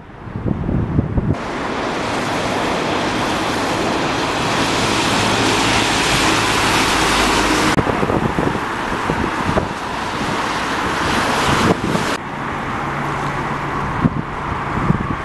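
Road traffic going by, with wind buffeting the microphone. A steady rushing of vehicles builds through the first half and stops abruptly, followed by quieter traffic with low engine hum.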